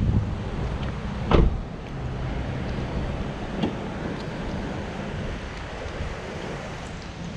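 A car door shuts with a single sharp thud about a second in, against steady gusty wind buffeting the microphone.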